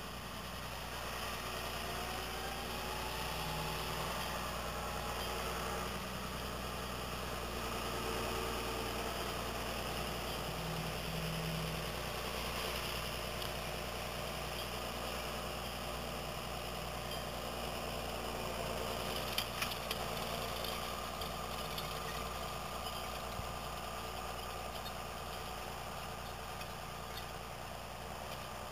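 John Deere tractor's diesel engine running steadily under load while pulling a beet seed drill, easing off slightly near the end as it moves away. A few short clicks about two-thirds of the way through.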